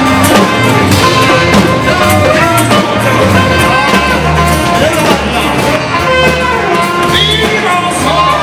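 Rock band music with guitar and a bass line, and a voice singing.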